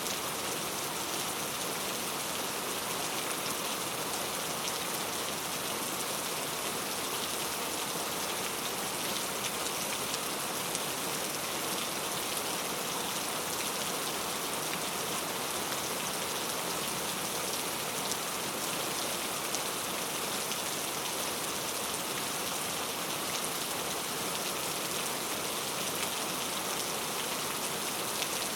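Heavy rain falling steadily, a dense, even hiss of drops with many fine patters on surfaces.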